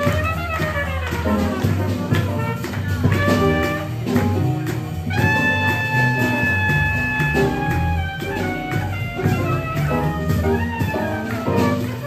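Live swing jazz band with piano and trombone playing an up-tempo tune over a steady beat. About five seconds in, a horn holds one long high note for about two seconds.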